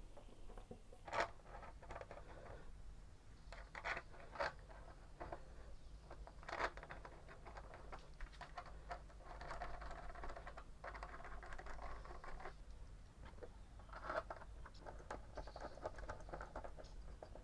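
Hands working on a scooter's plastic front panels and windshield bolts: scattered sharp clicks and knocks with stretches of scraping and rustling.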